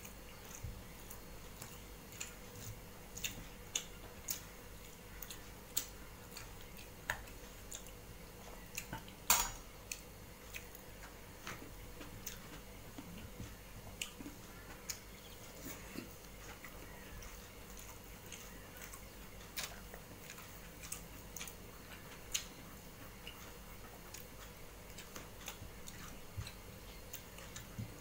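Fingers mixing and scraping rice across a metal plate while eating by hand: faint, irregular clicks and scrapes of skin and rings on metal, with some chewing. One louder clink comes about nine seconds in.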